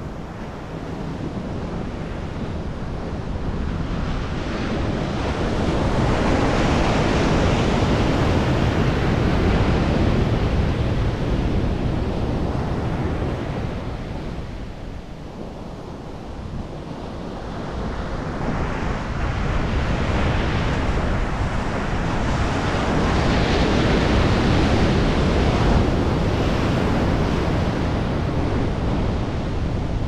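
Ocean surf breaking and washing up a sandy beach, swelling and easing in two long surges, with wind buffeting the microphone.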